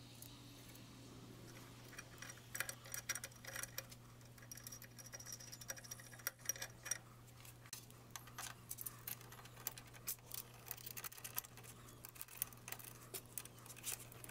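Light metallic clicks and ticks of small steel cap screws and an Allen key working against an aluminium ball-screw bearing plate as it is bolted on, irregular throughout, over a steady low hum.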